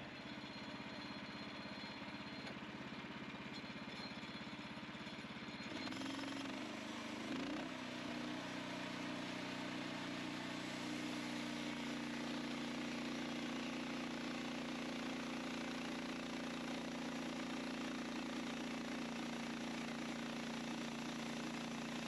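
Portable bandsaw mill's gas engine running steadily, revving up about six seconds in and then holding at a steady higher speed as the band blade saws through a log.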